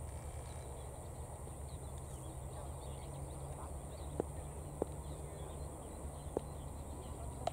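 Steady low rumble of outdoor background noise with faint scattered chirps, and four short sharp clicks in the second half.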